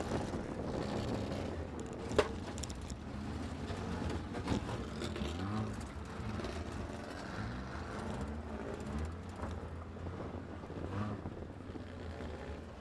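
Banger-race car's engine running at low revs, heard from inside the stripped cabin, its pitch rising and falling gently. A sharp knock about two seconds in.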